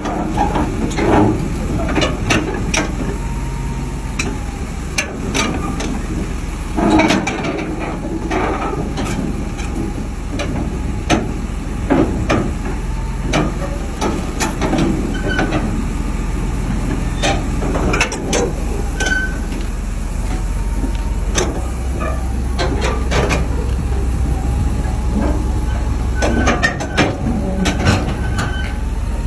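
A heavy machine running with a steady low rumble, with irregular metallic clanks and knocks throughout and a faint wavering whine.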